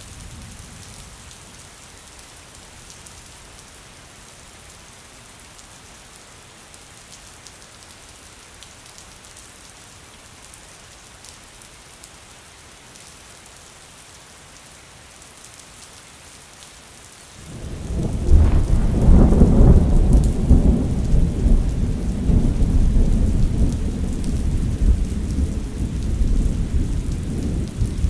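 Steady rain falling. About two-thirds of the way in, a long, loud, low roll of thunder rises quickly and keeps rumbling, slowly easing, over the last ten seconds.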